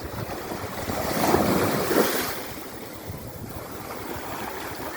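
Sea waves breaking on the shore: a wave crashes and washes up about a second in, loudest around two seconds, then the surf eases back.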